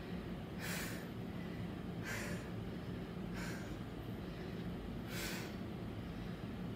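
A weightlifter's sharp, forceful breaths while holding a loaded barbell on the back between back-squat reps: four breaths, about one every second and a half, over a steady low hum.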